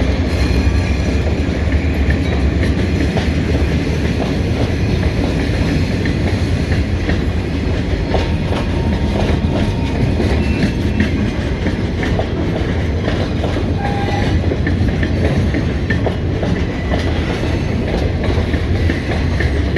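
Freight train cars rolling past: a steady heavy rumble with wheels clicking over the rail joints throughout.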